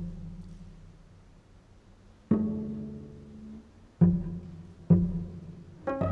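Cello played pizzicato: low plucked notes that ring and fade away. After a lull of about two seconds, four more plucks follow, the last two close together.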